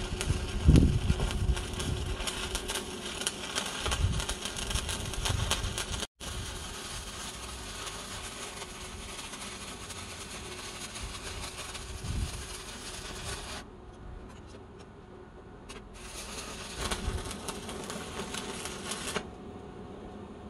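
Stick (arc) welding with a covered electrode: the arc crackles and sizzles steadily. It breaks off about 13 seconds in, strikes again about two seconds later, and stops for good a few seconds before the end.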